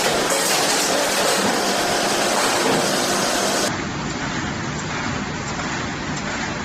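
Carton stitching machine running: a steady, dense mechanical clatter. About three and a half seconds in, the sound cuts abruptly to a quieter, duller take of the machine running.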